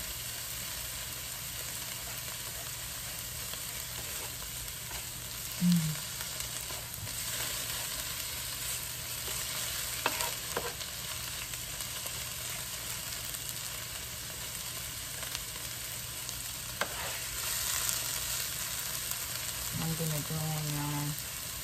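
Shredded mushrooms and onions frying in a nonstick pan with a steady sizzle, a plastic spoon stirring and now and then scraping or tapping the pan. A short low tone sounds about six seconds in and again near the end.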